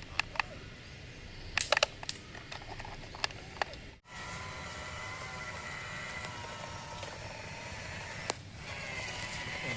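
Sharp plastic clicks and taps, then, after a brief cut, a small electric motor of a remote-control toy crane whining steadily.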